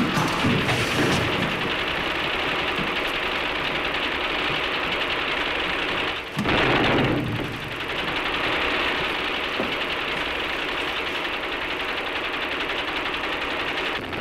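Film projector running with a steady mechanical clatter, with a brief louder rush of noise about six seconds in.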